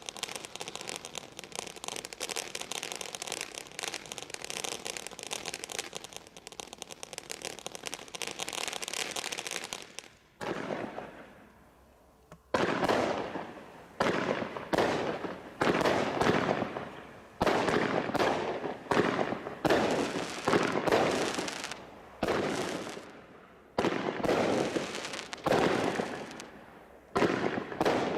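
Firework barrage cake from Bright Star Fireworks' Desert Storm Crate pack going off. For about ten seconds it gives a dense, continuous crackling. After a short lull comes a run of loud reports about once a second, each fading in a crackle.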